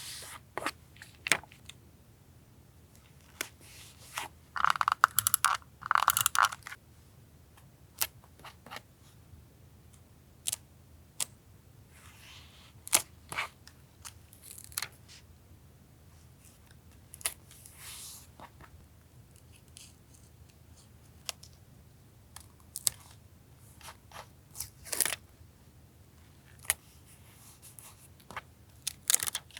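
Paper collage work at a desk: scattered sharp taps and clicks as paper pieces and stickers are handled and set down, with a stretch of paper crinkling and tearing about five seconds in.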